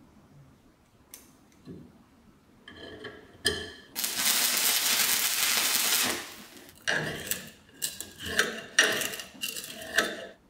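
Small steel parts clink as they are handled, then an electric welding arc gives about two seconds of steady hiss. After that comes a run of sharp metal clinks and knocks as steel parts are fitted together.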